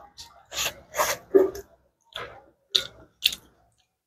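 Close-miked eating sounds from a meal eaten by hand: a run of short, noisy bursts, about eight in four seconds, as food is picked up and chewed.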